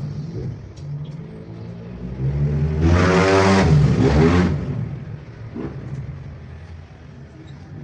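A motor running steadily, revved up and back down about three seconds in.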